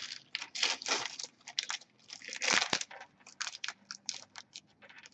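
Shiny foil wrapper of a 2008-09 Upper Deck SPx hockey card pack crinkling and tearing as it is opened by hand, in a run of irregular crackles that are loudest about halfway through.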